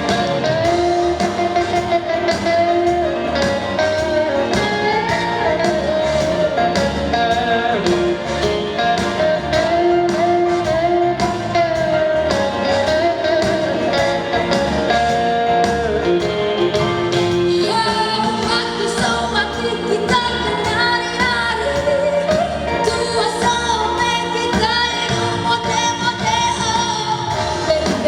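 Girl's solo voice singing a song over instrumental accompaniment with a steady beat.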